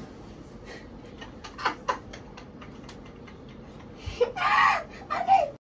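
A loud, short vocal exclamation about four seconds in, with a shorter vocal sound just before two seconds in, over faint irregular ticking.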